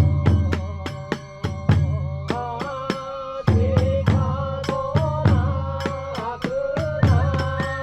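Kagura festival music: a taiko drum beating low rolls and the hand cymbals clashing on a quick steady beat, under a bamboo flute playing a wavering melody.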